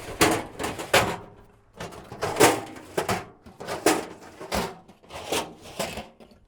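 Metal filing-cabinet drawers inside a safe being pulled open and searched: a string of irregular knocks, clatters and scrapes.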